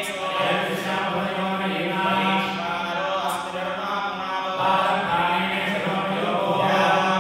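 A group of Hindu priests chanting Sanskrit mantras together in a steady, continuous recitation on a shared pitch, as part of a purification rite.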